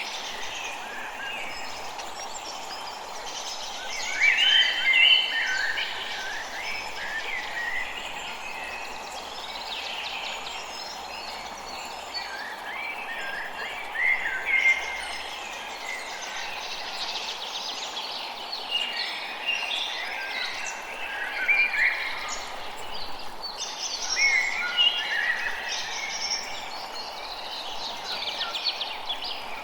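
Forest birds singing and calling, several at once, in busy spells separated by quieter gaps, over a steady background hiss.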